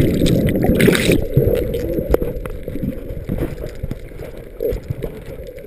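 Muffled underwater bubbling and rushing water, heard through an action camera's waterproof housing just after a plunge into the sea, slowly fading. About a second in there is a brief hissing burst.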